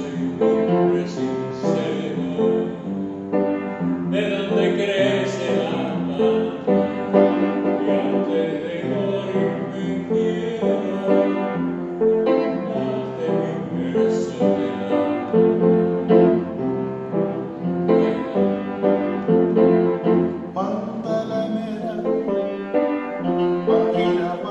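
Upright piano played with both hands, with a harmonica playing a melody along with it.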